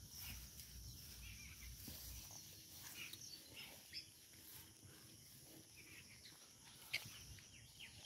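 Near silence: faint rural outdoor ambience, with faint insect and bird sounds and a soft click about seven seconds in.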